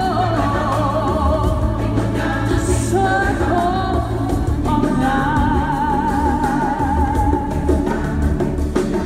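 Stage-show music with a choir singing and a lead voice holding long, wavering notes over a heavy low beat.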